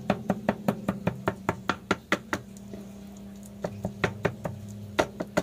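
A kitchen knife chopping ripe saba bananas by hand on a noisy chopping board: rapid knocks at about five a second, a break of about a second a little before halfway, then the chopping goes on.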